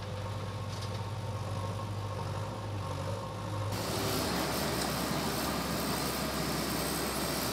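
Excavator's diesel engine running steadily, a low hum with noise above it. About four seconds in, the sound shifts to a louder, noisier engine sound with a deeper low note.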